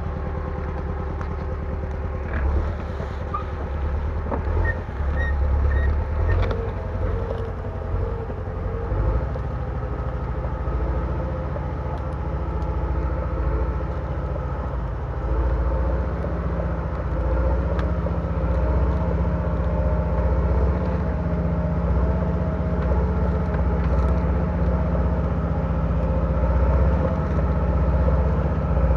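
Bulldozer's diesel engine running steadily under work, a little louder in the second half.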